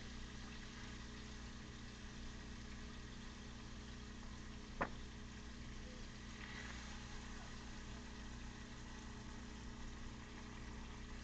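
Steady low hum with a single sharp metallic click about five seconds in, from metal tongs knocking the pot while lifting fried chicken out of the oil.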